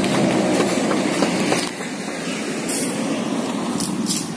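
KRL electric commuter train running past on the line, its rail noise fading as it moves away; the sound drops noticeably about a second and a half in.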